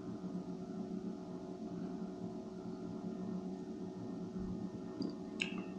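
Steady low hum of several held tones, with one brief sharp click near the end.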